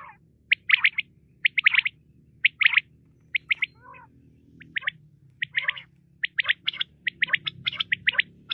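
Common quail calling: quick groups of two to four sharp, clipped notes, the male's "wet-my-lips" song, repeated about once a second, with softer, lower notes between some phrases. The phrases come thicker and overlap near the end.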